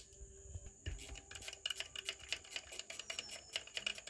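Irregular small hard clicks and taps, several a second and growing busier after the first second, over a steady high-pitched tone.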